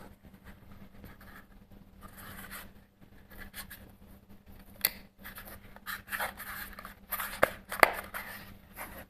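Handling noises: rubbing and scraping, broken by a few sharp clicks about five seconds in and twice near the end, the last one the loudest.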